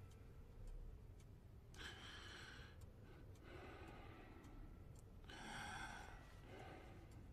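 A man taking two slow, deep breaths, each a breath in followed by a breath out, as asked for a stethoscope check of his lungs. The breaths are soft against a quiet room.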